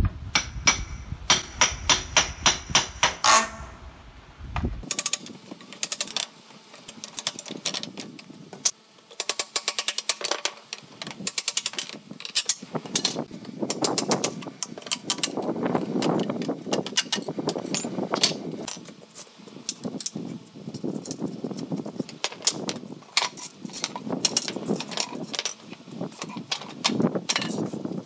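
A hammer and a ribbed steel rebar bar working boards off a wooden pallet: rapid repeated sharp strikes, ringing metallically in the first few seconds, then the creaking and cracking of wood and nails being pried loose.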